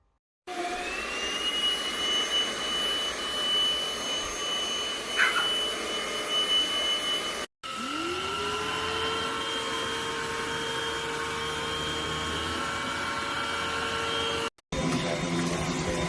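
K7 Pro cordless handheld vacuum's motor running with a steady high whine. It breaks off abruptly about seven seconds in, then spins up again with a rising whine and runs steadily, with another short break near the end.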